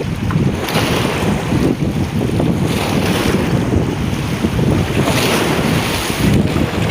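Ocean waves breaking and washing up a beach, the hiss of the surf swelling every second or two, with wind buffeting the microphone in a heavy low rumble.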